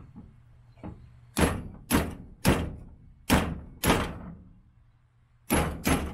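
Ball-peen hammer striking a socket set against a stuck polyurethane bushing, driving it out of an off-road suspension joint's steel body. A light tap, then five sharp metal strikes in quick succession, a pause, and two more near the end.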